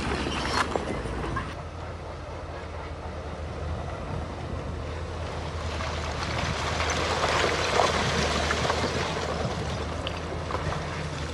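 Heavy diesel earthmoving machinery running steadily, with scattered clanks and rattles of metal and stone. The clatter grows louder and busier past the middle.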